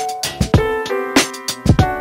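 Background music: keyboard notes over a drum beat.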